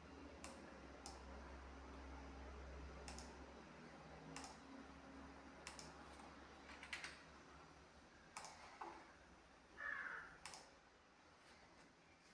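Near silence: faint room tone with a low hum that fades out about four seconds in, and soft clicks at irregular intervals.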